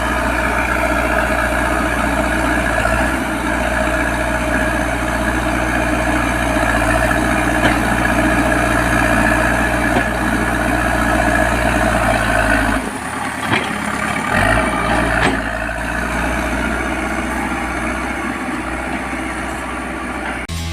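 Heavy diesel engine of construction machinery running steadily with a deep rumble. About two-thirds of the way through, the low rumble drops away and a few short clanks follow; the engine then carries on more quietly.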